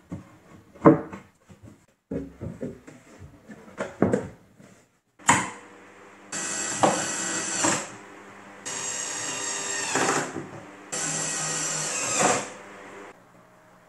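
Cordless drill-driver running in three steady bursts of about a second and a half each, driving screws up through the cabinet into its wooden top. Before that, several knocks and clunks as the board is set in place.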